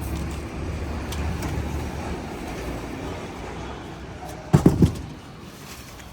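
Low rumble of road traffic fading away, then a quick cluster of about three heavy thumps about four and a half seconds in.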